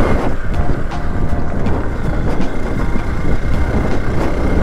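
Hero Xpulse 200 4V's single-cylinder engine running while the motorcycle is ridden over a rocky riverbed track, with a dense, steady rumble and some wind noise on the microphone.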